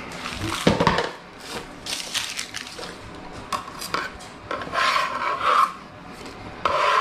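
Rubbing and scraping on a wooden cutting board: dry onion skins being peeled and handled, with a metal bench scraper dragged across the board near the end.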